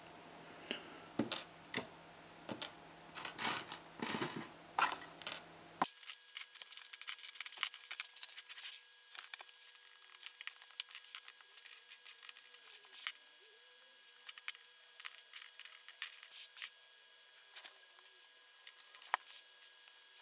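Tiny plastic LOZ micro building bricks clicking and rattling on a wooden tabletop as they are picked through and pressed together. Louder separate clicks come in the first few seconds, then quicker, softer ticking.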